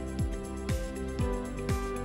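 Background music with a steady beat, about two beats a second, over held notes.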